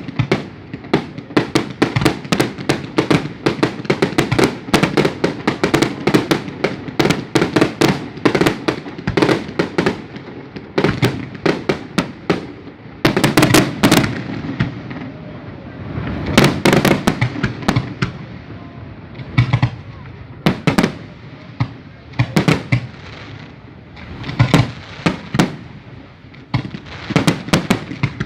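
Fireworks display: a rapid, nearly continuous string of bangs and crackles from bursting shells, with heavier volleys of loud bangs about halfway through and again near the end.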